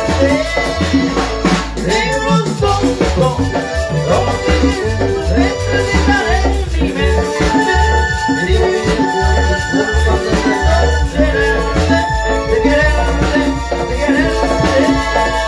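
Live marimba orquesta playing loud, amplified dance music in a cumbia style, with a steady pulsing bass beat under the melody.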